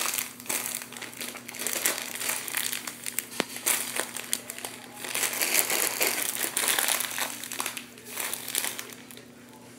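A plastic zip-top bag stuffed with cotton is squeezed and kneaded by hand, crinkling over and over in irregular bursts. The crinkling dies down near the end.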